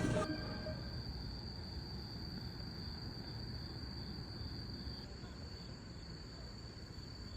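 Crickets or other night insects singing: a faint, steady high trill with a soft, evenly repeated chirp beneath it. A burst of music cuts off just after the start.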